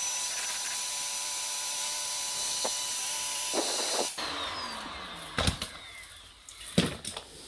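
Shark AZ910UKT anti-hair-wrap upright vacuum cleaner switched on, running with a steady rushing hiss and whine while hair is still tangled on its floor-head brush roll. It is switched off about four seconds in and its whine falls away as it spins down. A couple of knocks follow.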